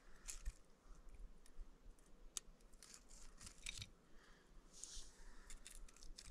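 Near silence with faint scattered clicks and a few soft rustles: small sounds of people eating and handling food.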